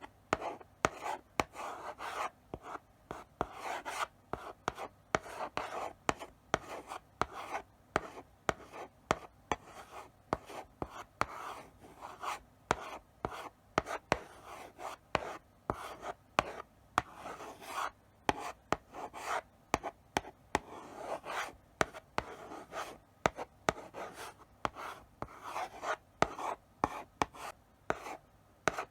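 Chalk writing slowly on a blackboard: a steady run of short strokes, each a sharp tap of the chalk onto the board followed by a brief scratchy scrape, several to the second with short pauses between letters.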